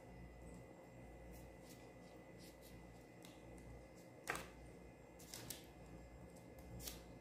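Near silence with a few faint, short clicks in the second half from a metal spoon spreading sauce over pizza dough rounds on a parchment-lined tray.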